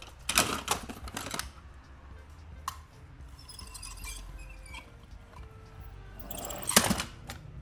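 Toy cars handled by hand and rolled across a ribbed plastic board: clattering clicks and rattles of their wheels and bodies, in one burst near the start and another near the end, with a lighter rattle in between.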